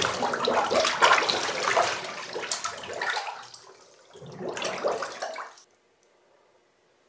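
Bathwater splashing and churning as a person moves with her head under the water in a full bathtub. It is loudest at first and fades over about three seconds, then a second, shorter surge of splashing comes about four seconds in and cuts off abruptly.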